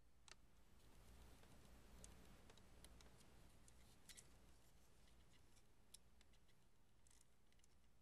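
Faint, scattered small clicks and ticks: film and the movie camera's metal parts being handled while film is threaded past its sprocket rollers. A low, steady room hum sits under them.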